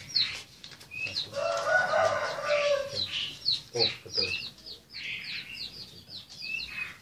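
Caged birds chirping in quick, short, high descending notes, several a second, with a rooster crowing loudly over them for about two seconds starting a little after one second in.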